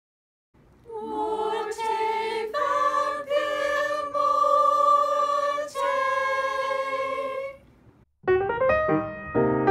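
Voices hold a sung chord in a few long, wavering notes for several seconds, then break off. About eight seconds in, piano music starts.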